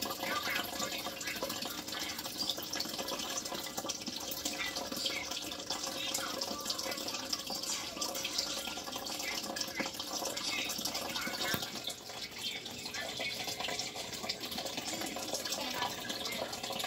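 Water trickling and splashing steadily in a small turtle tank, with many small irregular drips.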